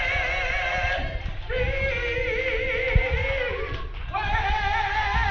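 A woman singing gospel praise into a handheld microphone, solo, in three long held phrases with a wide vibrato.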